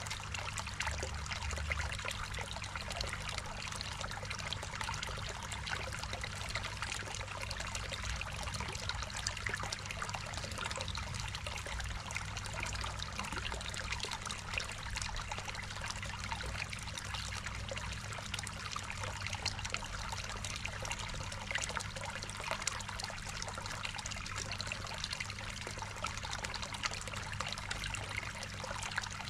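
Water trickling and splashing steadily into a garden koi pond, with a steady low hum underneath.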